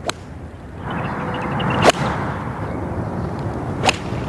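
Three sharp, crisp cracks of a golf iron's clubface striking the ball, about two seconds apart, the middle one the loudest, over a steady outdoor hiss that grows louder about a second in.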